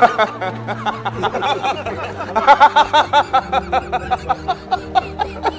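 Men laughing heartily together in quick rhythmic bursts, starting about two seconds in, over soft background music with low held notes.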